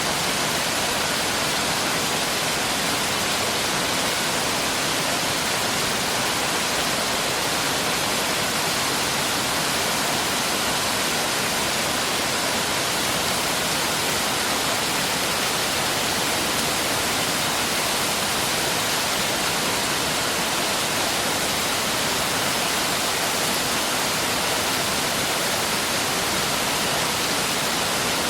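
Mountain valley stream rushing steadily over rocks, an even, unbroken rush of water.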